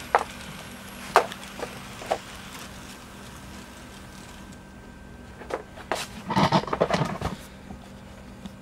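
Atlas U36C HO-scale model diesel locomotives running under DCC, their motors giving a steady low hum. Sharp clicks come through it now and then, and a louder patch of knocks and rustling comes about six to seven seconds in.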